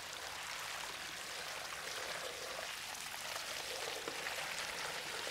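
Water splashing steadily as it pours down over loose broken stones and gravel.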